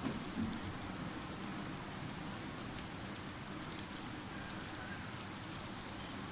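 Mung dal cutlets sizzling as they shallow-fry in oil on a flat pan: a steady frying hiss with scattered small crackles.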